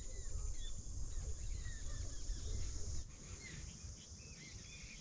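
Outdoor evening ambience: a steady high-pitched insect chorus with many small birds chirping, over a low rumble that drops away about three seconds in.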